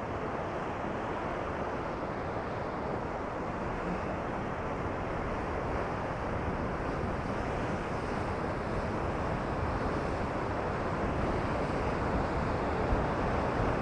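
Heavy ocean surf breaking on a rocky shoreline, mixed with wind buffeting the microphone: a steady rush that grows slightly louder toward the end.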